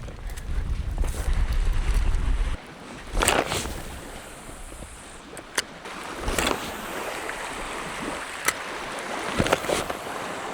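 Wind buffeting the microphone with a low rumble that cuts off suddenly after about two and a half seconds. Then water lapping at the shore goes on steadily, with a few short, sharp knocks or splashes.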